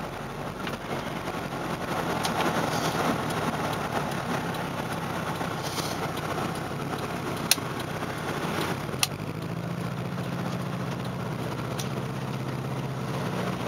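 Saturn SW2's four-cylinder engine running steadily while the car is driven, with an even wash of road noise and two sharp clicks about halfway through. The engine has a misfire, though no check-engine light is on.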